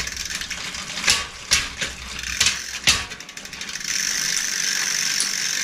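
Bicycle drivetrain with a Fichtel & Sachs Torpedo three-speed hub, turned by hand to test the gears after a new shift cable. A few sharp irregular clicks and knocks come first. From about four seconds in there is a steady whirring as the wheel spins freely. The chain slaps, but the hub shifts.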